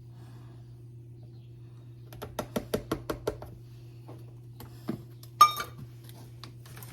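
Kitchen utensils knocking against a mixing bowl: a quick run of about eight light taps, like a measuring cup being tapped empty of flour, then a single louder clink that rings briefly. A low steady hum runs underneath.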